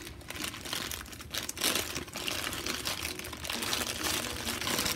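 Thin clear plastic bags crinkling and rustling in irregular crackles as hands pull them off a reborn baby doll's limbs.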